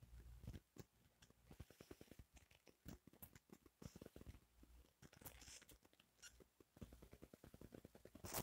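Near silence with faint, irregular clicks and soft low thumps.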